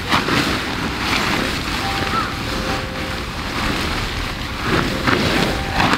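Wind buffeting the microphone in a steady low rumble, with brief rustles of tent fabric being lifted and shaken out.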